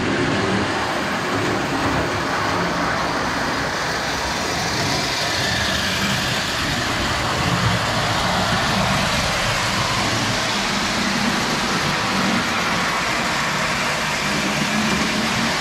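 Freshly restored Lionel Standard Gauge 318 toy locomotive running on its track, pulling passenger cars: a steady rumble of the motor and metal wheels on the rails.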